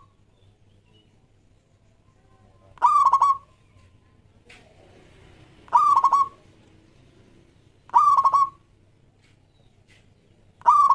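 Zebra dove (perkutut) cooing: a short staccato call of a few rapid notes, repeated about every two and a half seconds, three full calls and a fourth starting near the end.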